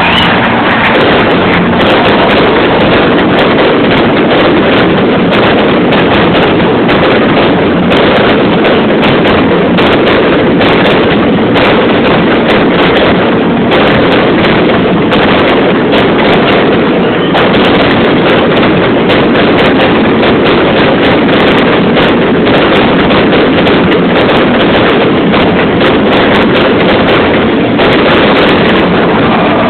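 Fireworks going off in a rapid, unbroken barrage, many bangs and crackles running together into one loud, continuous din that overloads the recording.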